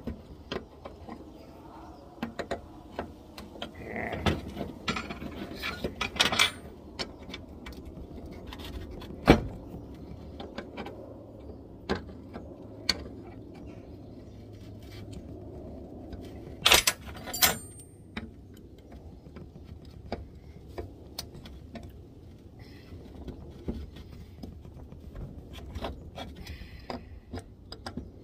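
Small metal parts and hand tools clinking and tapping at irregular intervals as a carburettor is worked on, with one sharp knock about nine seconds in and a pair of loud clicks a little after sixteen seconds.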